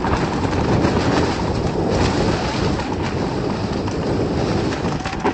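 Mountain bike tyres rolling fast over a trail carpeted in dead leaves, a steady rushing noise with a strong low rumble, heard through a helmet-mounted camera.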